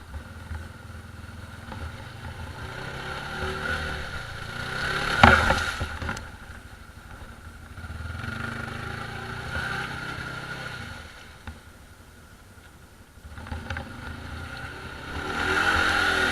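Quad bike (ATV) engines revving up and easing off in several surges. The loudest comes about five seconds in with a sharp knock, and another builds near the end.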